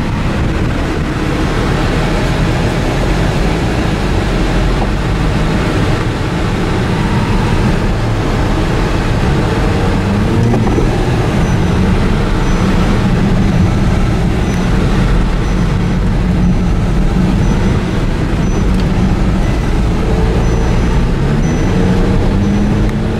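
Audi TT engine and tyre noise heard from inside the cabin while driving slowly. Near the end the engine note rises steadily as the car picks up speed.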